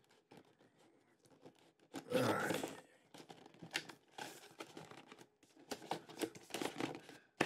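Cardboard packaging scraping and rustling as a white cardboard box insert is worked out of its box, in irregular scrapes with small knocks and clicks.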